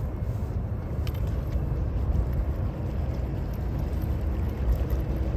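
A steady low rumble of outdoor background, with a few faint light clicks as a metal jig lure is handled and clipped onto the line.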